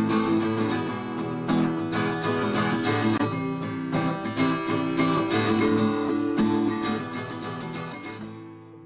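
Background music of strummed acoustic guitar, fading out near the end.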